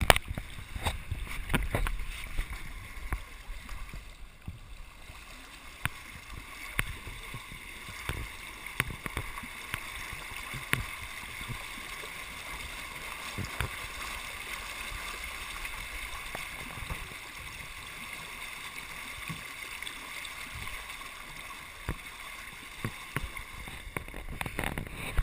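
Water lapping and gurgling against the hull of a small pedal boat on the move, a steady wash with scattered clicks and knocks. The bumps are heaviest in the first few seconds.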